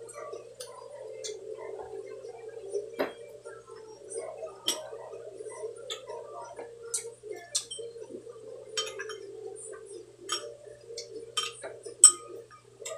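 Irregular small clicks and taps of balut eggshells being cracked and peeled by hand, with metal spoons clinking against glass bowls, the sharpest clink near the end. A steady low hum runs underneath.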